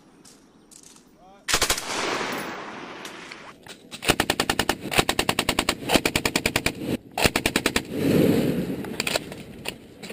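Machine gun firing on a range: a short burst about a second and a half in, its echo rolling away, then long rapid bursts from about four seconds in, broken by brief pauses.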